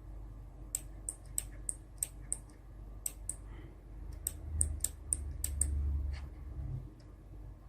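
Kailh BOX Thick Click keyboard switches pressed one key at a time, each keystroke giving a sharp, crisp click. About fifteen clicks come at an uneven pace, bunching together in the middle, over a low rumble.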